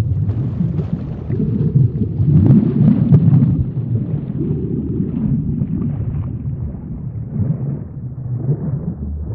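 Underwater ambience sound effect: a low, surging rumble of water that swells and eases, loudest about three seconds in.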